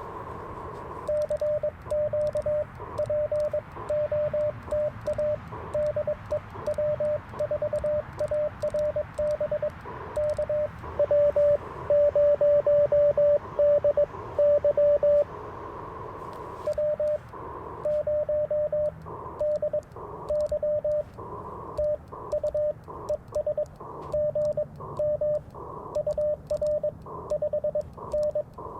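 Morse code (CW) from the Icom IC-705 transceiver: a steady-pitched tone keyed on and off in dits and dahs, louder for a few seconds in the middle. A fainter, higher-pitched Morse tone and band hiss sit behind it.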